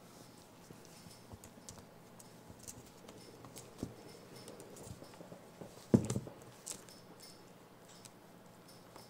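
Light pattering and scuffing of a baby capuchin monkey's hands and feet moving about on a fluffy blanket, with scattered small taps and one sharp thump about six seconds in.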